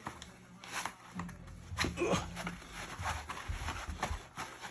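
A man breathing hard, in short noisy breaths about a second apart, with rustling and low rubbing as tight elastic knee wraps are pulled off his legs.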